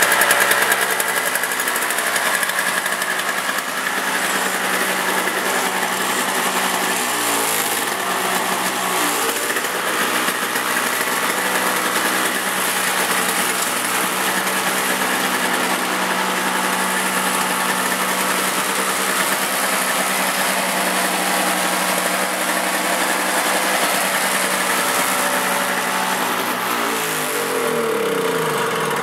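Toro CCR 2450 snowblower's 5 hp two-stroke R-Tek engine running cold on choke, first run in a year. Its speed sags and recovers, hunting a little: once about a quarter of the way in and again near the end.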